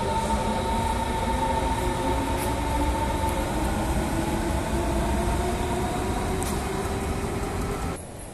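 A Berlin S-Bahn electric train runs at the platform with a steady rumble and a motor whine of several tones, one of them rising slightly. The sound drops off sharply near the end.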